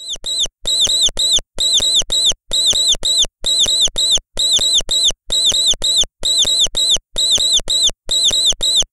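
Mouse squeaking sound effect: short, high-pitched squeaks in quick runs of three, repeated about once a second as an identical loop.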